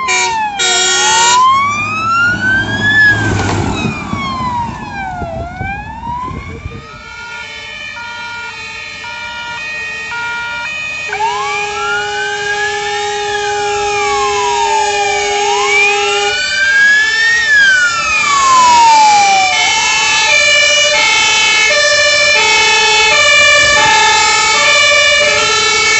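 Several fire engine sirens sounding together: slow wails rising and falling over a few seconds each, and from about a quarter of the way in, two-tone horns switching back and forth between two pitches. They grow louder toward the end as the fire engines come close.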